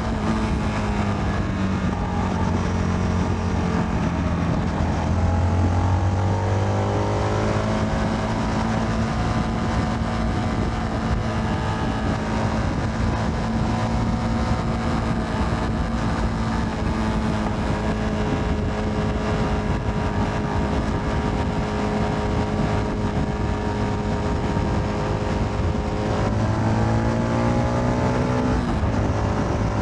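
Motorcycle engine running under way with road and wind noise. The engine note drops over the first few seconds, climbs again as it accelerates, holds steady at cruising speed, then dips and climbs once more near the end.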